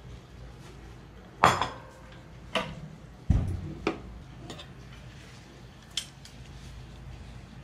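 Metal kitchen utensils clinking and clanking against a pan and the counter: five sharp knocks over the first six seconds, the loudest about a second and a half in, with a heavier thump about three seconds in.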